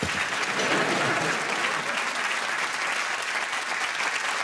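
Studio audience applauding steadily, with a few faint voices underneath.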